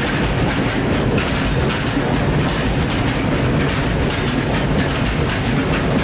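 A goods train's covered wagons rolling past close by: a steady, loud rumble of wheels on rails, with a constant rapid clatter of wheels over rail joints.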